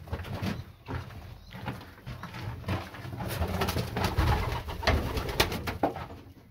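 Racing pigeons cooing in a loft, a low throbbing coo that goes on throughout, with several sharp knocks and rustles in the second half as a hand works in a wooden nest box.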